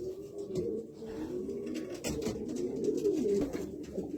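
Racing pigeons cooing: low, throaty coos that waver up and down in pitch, one after another.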